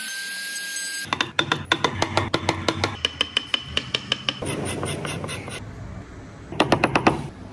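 A handheld trim router runs with a steady whine and cuts off about a second in. A hand chisel then cuts a shallow recess in a board: rapid repeated clicks and knocks of the blade in the wood, with a louder cluster of knocks near the end.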